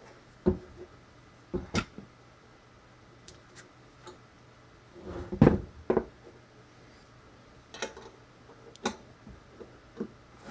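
Scattered knocks and clicks of metal parts being handled on a wooden workbench as a DC motor is fitted into the motor clamp of a small drill press. The loudest cluster comes about halfway, and a hex key clicks against the clamp screw near the end.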